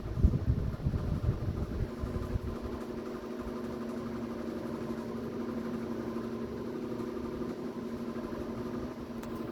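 Ventidelta Ventura 60 cm pedestal fan running with a steady motor hum. Its airflow buffets the microphone for the first couple of seconds.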